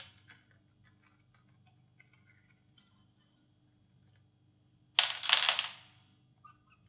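Small metal spray-gun parts clinking and rattling together in a burst lasting about a second, about five seconds in, with a few faint clicks of handling before it.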